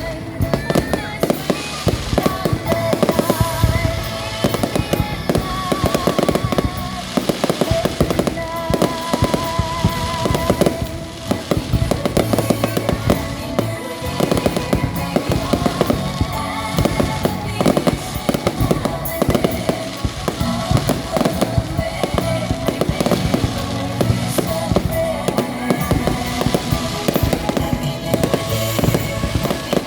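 Fireworks going off in a dense, continuous run of bangs and crackles, with music playing underneath.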